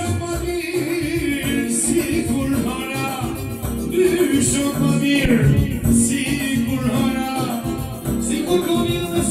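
Live amplified music: a man sings into a microphone through a PA, with a violin playing along.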